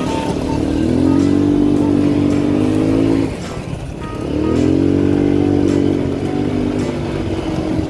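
Small off-road bike engine revving up and holding a steady pitch for about two seconds, easing off briefly, then revving up and holding again before easing off near the end.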